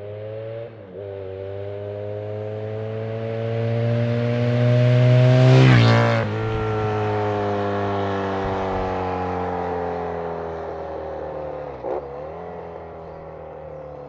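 Yamaha FZ6 Fazer's inline-four engine, fitted with Scorpion oval slip-on exhausts, accelerating up the road and passing close by. The engine note climbs and grows loud, peaks about six seconds in, then drops in pitch as the bike passes and fades away. There is a brief break in the note about a second in and another near the end, like gear changes.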